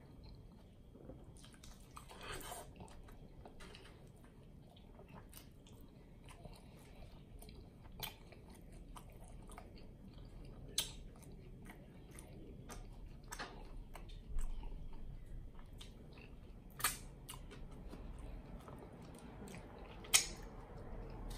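Close-miked chewing of a cheeseburger, with wet mouth sounds and scattered sharp lip smacks. The loudest smack comes near the end, as fingers are licked clean.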